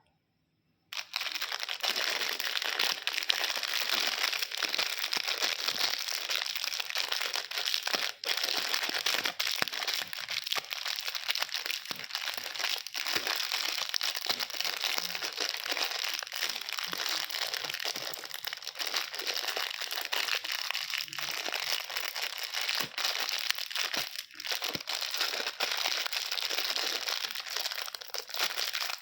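Candy wrapper crinkling steadily as it is handled, a dense run of crackles and small sharp clicks, starting suddenly about a second in.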